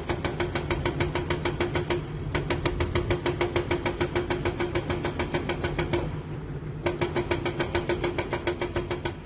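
Hydraulic excavator at work: its diesel engine runs under a rapid, even metallic clatter of about eight or nine strokes a second, which stops briefly twice and resumes.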